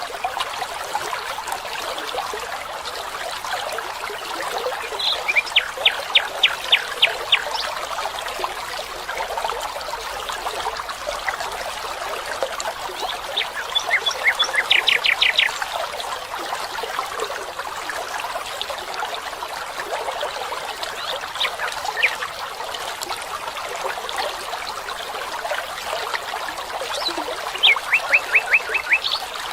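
A small stream running steadily, with a bird singing three times a short series of rapid repeated high notes over it.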